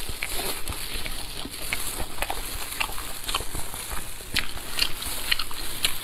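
Close-miked eating sounds: wet chewing and lip smacks with many short clicks, while gloved hands tear apart a pork knuckle.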